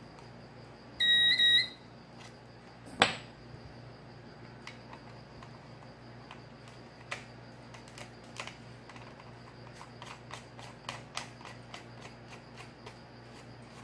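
Sound-and-light high-voltage non-contact voltage detector giving one short high beep about a second in, just after its 9-volt battery is refitted, showing that it has power. A sharp plastic click follows about two seconds later, then light clicks of the housing being handled.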